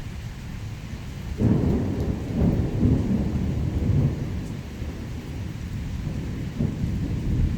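Thunder rolling over steady rain: a low rumble breaks in suddenly about a second and a half in, rolls loudly for a few seconds, eases, then swells again near the end.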